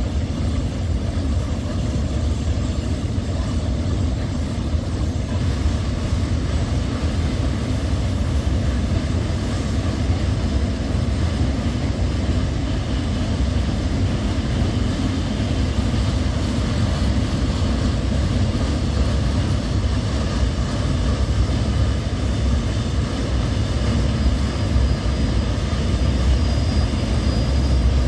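Freight train of loaded container wagons rolling steadily over a viaduct: a continuous low rumble of wheels on the rails. A faint high wheel squeal comes in near the end.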